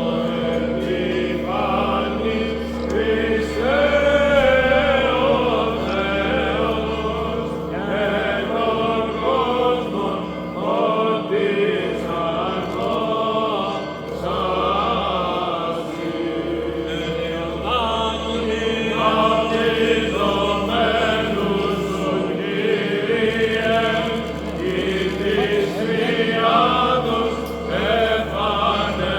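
Byzantine liturgical chant sung by a group of voices, with wavering melodic lines that continue without a break.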